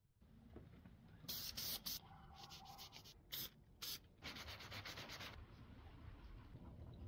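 An aerosol spray can hissing in several short bursts, one of them broken into quick rapid puffs, then the soft rubbing of a cloth working paste wax into the wooden stem near the end.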